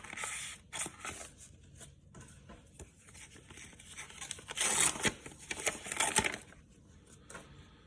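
Sports card packaging being handled: rustling, crinkling and tearing with scattered sharp clicks, growing louder for a second or so about five seconds in.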